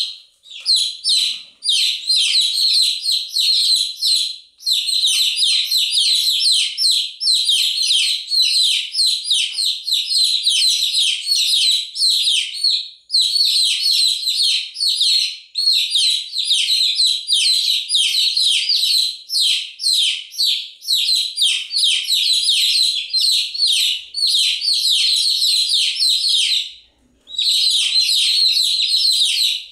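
Baby chicks peeping continuously: a dense stream of quick, high, downward-sliding chirps from several chicks at once, broken by a few short pauses, the longest near the end.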